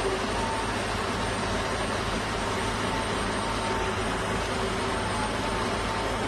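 Large crawler-mounted rotary piling rig running steadily as it drills a bored pile: diesel engine drone with a faint steady whine.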